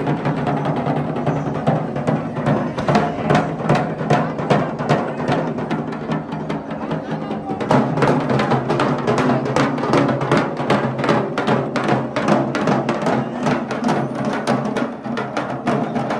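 Several double-headed barrel drums beaten together in a fast, dense rhythm of sharp strokes. About eight seconds in, the drumming grows louder and more insistent.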